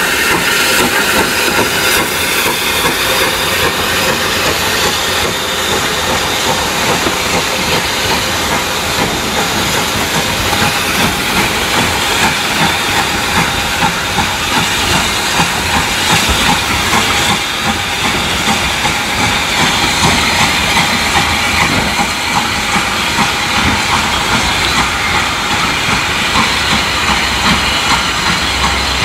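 Hunslet 14-inch saddle tank steam locomotive hissing steam steadily and loudly as it works past hauling carriages, the carriages rolling on along the track.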